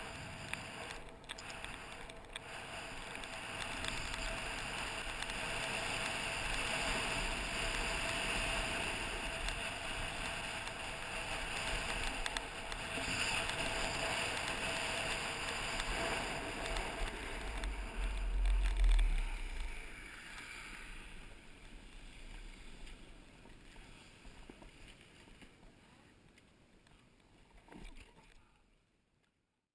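Snowboard sliding and carving over snow, a steady hiss and scrape of the board on the snow, with a deeper rumble peaking about two-thirds of the way through. It then fades as the rider slows to a stop.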